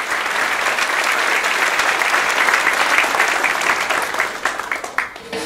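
Audience applauding, the clapping thinning to a few last scattered claps near the end.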